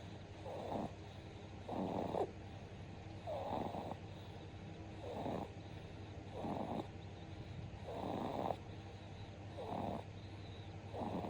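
A two-month-old baby snoring in its sleep: short snores repeating regularly, about one every second and a half.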